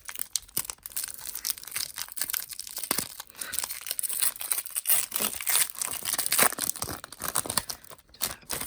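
Foil wrapper of a Pokémon trading card booster pack crinkling and tearing as it is pulled and ripped open by hand, after it resisted opening.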